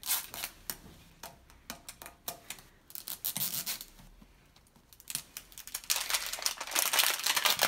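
Two L.O.L. Surprise balls' wrapping layers being torn and peeled open by hand: scattered crinkles and rips at first, then a dense run of crackling and tearing over the last two seconds.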